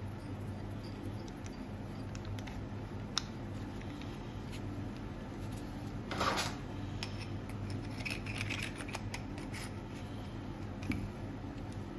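Steel parts handled on a steel workbench: a keyless drill chuck on its arbor and a steel sleeve clicking lightly, a short scrape about six seconds in as the sleeve is picked up from the bench, and faint metal rubbing after as it slides onto the shaft. A steady low hum runs underneath.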